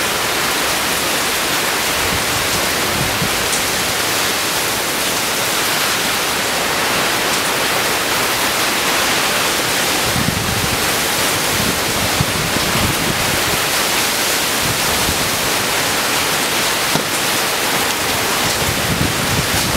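Heavy rain and strong wind from a hurricane feeder band: a steady, loud hiss of downpour, with low gusty rumbles about halfway through and again near the end.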